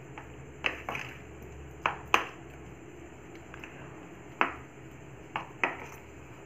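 A spoon stirring wet grated-potato and egg mixture in a plastic container, its edge knocking against the container sides in about seven short, irregular knocks.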